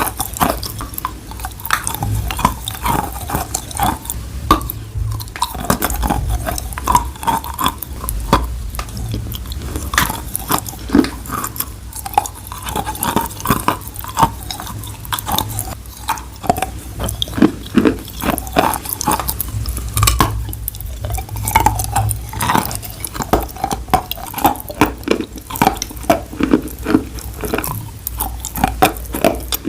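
Close-up wet crunching: a dense, irregular run of sharp crackles and squelchy clicks that goes on without a break.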